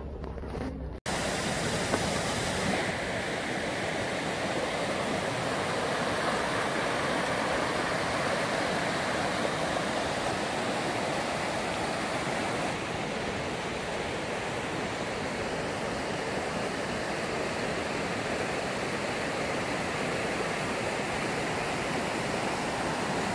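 Shallow rocky river rushing over stones: a steady, even rush of water that starts abruptly about a second in.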